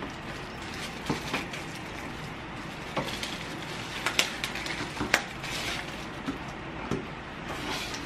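Plastic clicks, knocks and rattles of a canister vacuum cleaner's hose, wand and floor brush being handled and fitted together, irregular and a few seconds apart, over a steady background hiss. The vacuum is not running.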